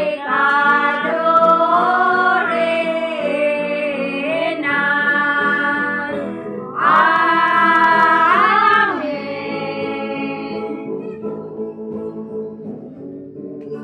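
A group of women singing a song together to acoustic guitar accompaniment, with long held notes. The voices fade out about ten seconds in, leaving the guitars playing on.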